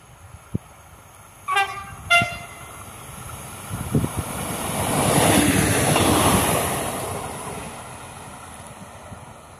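X 73500 'A TER' diesel railcar sounding two short horn blasts about a second and a half in, the second higher in pitch, then passing close by: the noise of the passing train swells to its loudest in the middle and fades as it moves away.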